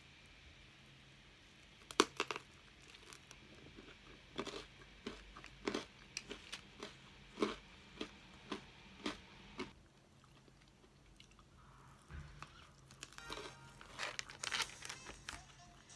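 Crisp crunching of chewing crusty bread, roughly one crunch every half second, then crinkling of a brown paper bakery wrapper near the end.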